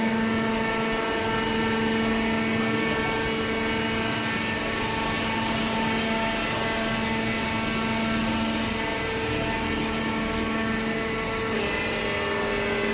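Horizontal hydraulic waste paper baler running: a steady machine hum from its hydraulic power unit, with a slight change in tone near the end.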